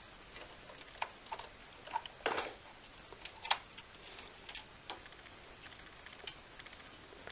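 Irregular light clicks and taps of a screwdriver and screw against the graphics card's mounting bracket on a computer case as the bracket screw is worked into place, with a slightly louder knock about two seconds in.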